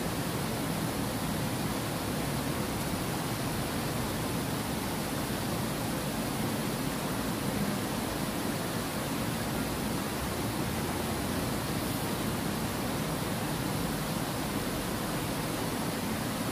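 Steady rushing of water pouring over a low concrete weir into a channel.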